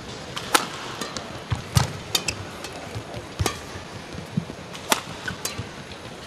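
Badminton rally: a series of sharp racket strikes on the shuttlecock, roughly one every second or so, with a few low thuds of footwork on the court.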